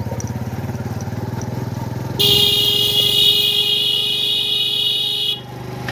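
An engine running with a fast, even pulse. About two seconds in, a loud buzzing horn starts and holds steady for about three seconds, then cuts off.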